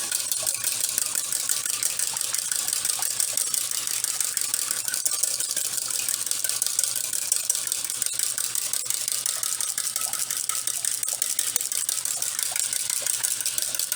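A wire whisk beating a runny mix of oils, honey and aloe vera gel in a bowl: a steady stream of rapid clicking and rattling as the wires hit the bowl.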